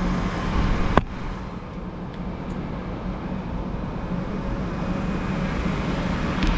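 A click-type torque wrench gives one sharp click about a second in as the igniter lead's coupling nut on the APS3200 APU reaches its set torque. Under it runs a steady low background hum.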